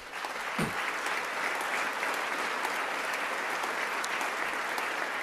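An audience applauding, a steady round of clapping.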